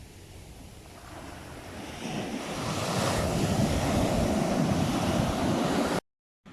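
Ocean surf breaking and washing in: a rushing noise that swells about two seconds in and stays loud, then cuts off abruptly near the end.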